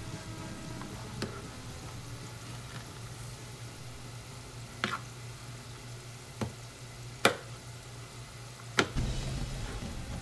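Kitchen knife cutting potato slices into fry strips on a plastic plate, the blade knocking sharply against the plate about five times at irregular intervals, over a steady sizzle of frying oil.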